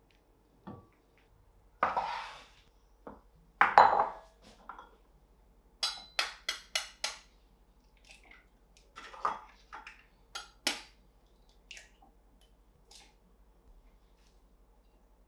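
Eggs cracked with a kitchen knife over a glass bowl: runs of sharp taps on the shells, about four a second, with light clinks of glass. Two louder brief noises come in the first few seconds.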